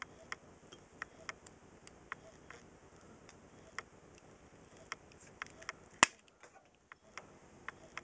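Tin snips clicking in small, irregular bites into a thin metal lamp-socket bracket, with one loud, sharp snap about six seconds in as the angle cut goes through.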